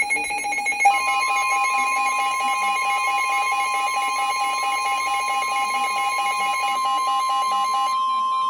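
Emergency Alert System attention signal: a steady electronic alarm tone, joined about a second in by a second, slightly higher tone so the two sound together. Near the end the lower tone drops out and the higher one carries on alone.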